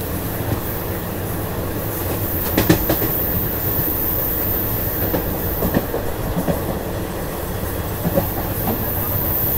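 Express passenger train running along the line, heard from on board: a steady rumble with wheels clacking over rail joints, the sharpest clack about two and a half seconds in.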